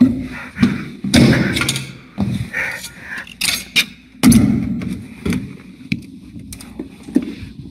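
A man's voice in short, indistinct bursts, with a few dull thuds; the loudest thud comes about four seconds in.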